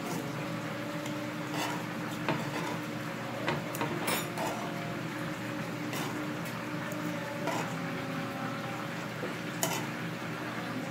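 Metal kitchen tongs clinking and scraping against an electric griddle plate and a serving plate as grilled shrimp are lifted off, a sharp click every second or so, over a steady low hum.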